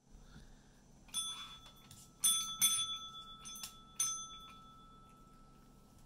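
Desk call bell struck five times by a chihuahua pressing its plunger with a paw: a ding about a second in, two quick dings a little later, then two more, each ringing on and fading.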